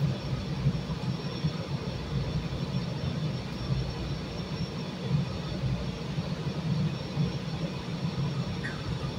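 CTA 5000-series 'L' train standing at the platform with its doors open, its onboard equipment giving a steady low hum.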